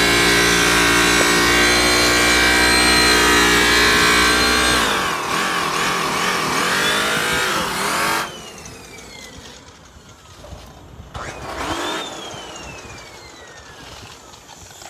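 Right-angle sander with a purple abrasive disc running at full speed with a loud, steady whine, then slowing about five seconds in, its pitch wavering as the speed changes. After an abrupt drop near eight seconds, fainter falling whines follow, with one brief rise and fall about eleven seconds in.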